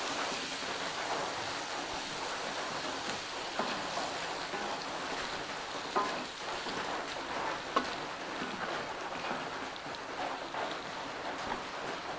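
Food sizzling steadily in a frying pan as it is stirred, with two sharp knocks of the stirring utensil against the pan about six and eight seconds in.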